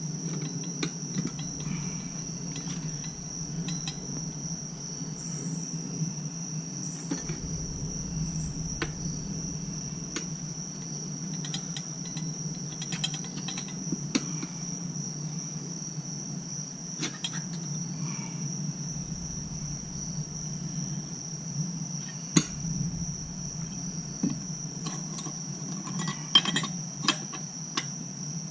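Crickets chirping in a steady high trill that doesn't let up. Scattered clicks and knocks from tire-changing work come over it, thickest near the end.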